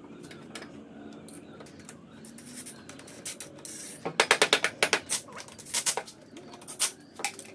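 Cordless impact driver running in the bolts of a golf cart's electric drive motor, rattling in four or five short bursts of rapid clicking impacts from about halfway in, after a few seconds of quiet handling.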